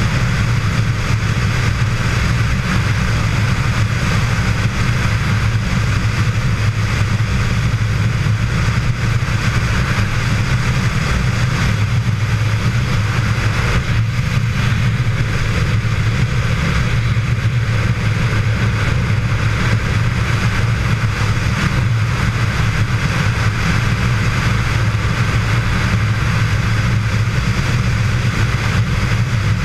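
Touring motorcycle cruising at a steady highway speed, heard from a camera mounted on the bike: a constant low engine drone under an even rush of wind and road noise.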